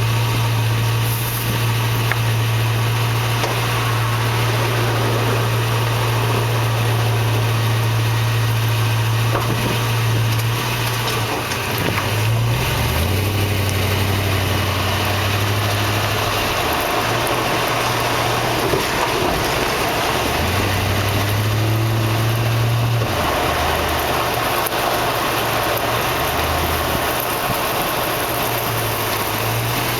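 2004 Toyota Tundra pickup running at low speed: a steady low engine drone that shifts pitch a few times, over road and cab noise, with a few faint knocks, the lesser clunks of the truck's rear end.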